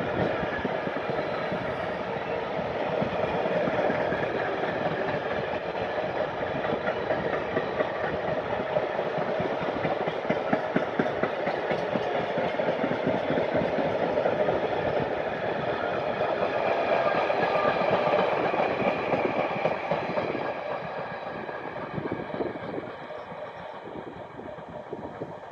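Empty container flat wagons of a long freight train rolling past at speed, wheels clattering over the rails in a continuous dense rumble. It gets quieter over the last few seconds as the train draws away.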